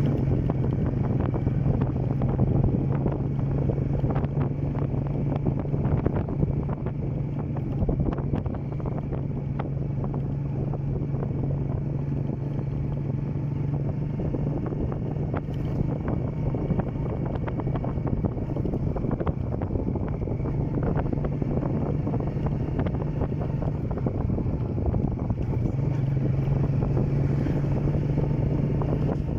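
Motorcycle engine running steadily at cruising speed, with wind buffeting the microphone. The engine hum weakens briefly about three-quarters of the way through and comes back strongly near the end.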